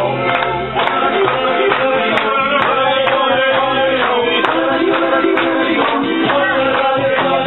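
Live volkstümliche (Alpine folk-pop) band music, with the audience clapping along in time to the beat.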